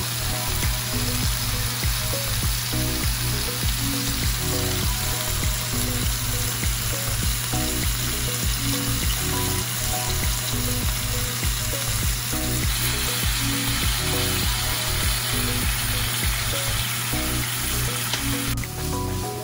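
Thin-sliced pork belly sizzling in a frying pan, a steady hiss that drops away sharply near the end. Background music plays under it.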